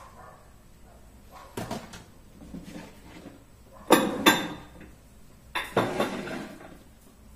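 Food containers being set onto the shelves of a pressed-wood kitchen cabinet: a few sharp knocks and clatters, the loudest a pair about four seconds in and another cluster near six seconds.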